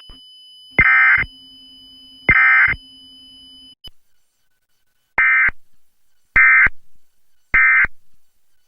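Emergency Alert System SAME digital data bursts, harsh screeching chirps. The first two come over a low steady hum. Then three short End of Message bursts follow about a second apart, the signal that closes an EAS alert.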